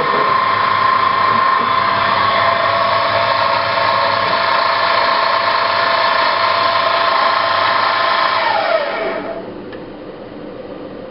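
Optimum BF20 Vario milling machine spindle running at speed with a steady whine over a hiss, then winding down about eight and a half seconds in, its pitch falling as the motor stops; a quieter hum remains.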